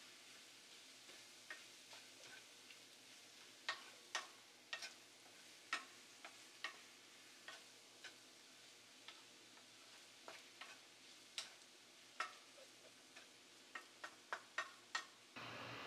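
Wooden spatula stirring a cucumber, egg and carrot stir-fry in a nonstick frying pan: irregular clicks and taps of the spatula on the pan over a faint sizzle, the taps coming quickly several times near the end.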